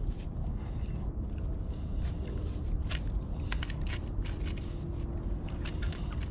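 Dogs eating and wrestling over food: scattered sharp crunches and clicks of chewing and scraping, thickest in the second half, over a steady low rumble.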